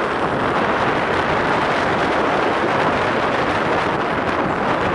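Steady loud rush of wind buffeting the microphone, with no other distinct sound standing out.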